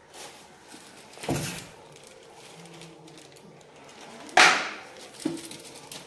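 Handling knocks on a new top-loading washing machine's plastic body and lid: a dull thump about a second in, a loud sharp clatter a little past four seconds that dies away quickly, and a light click soon after.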